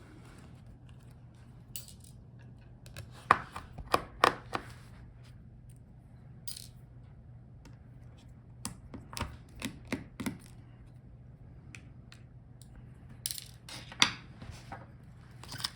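Scattered small clicks and taps as the tiny screws holding a laptop motherboard are unscrewed and set down, in a few clusters, over a steady low hum.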